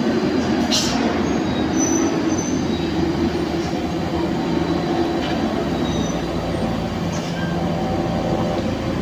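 Heavy truck or bus engine running steadily under load as it climbs a steep grade.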